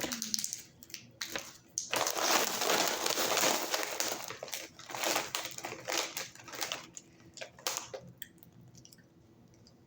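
Plastic snack wrapper of a jelly-strip candy crinkling and crackling as it is handled and opened, in bursts over several seconds, fading out near the end.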